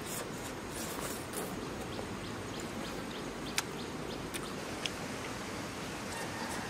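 Steady outdoor background noise with a few sharp clicks and taps in the middle, as food in the pan is handled by hand.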